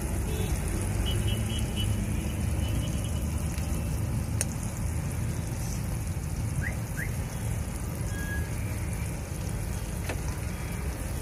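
An egg frying in butter on a large flat iron tawa, a steady sizzle, under a steady low background rumble.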